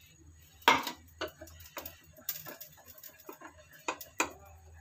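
Wire balloon whisk beating a thin flour-and-tomato batter in a glass bowl, its wires clicking and ticking irregularly against the glass, with one louder clack under a second in.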